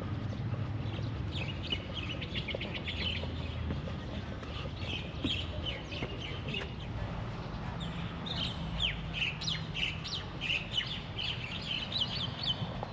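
Small birds chirping: quick runs of short, high notes in clusters, busiest near the start and in the second half, over a low steady rumble.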